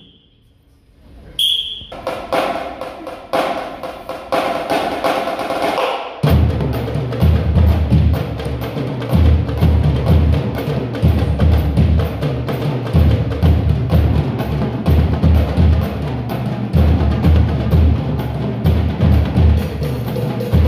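A school drumline's marching bass drums play a loud, rhythmic cadence with sharp stick strokes over the top, starting about six seconds in after a brief lull.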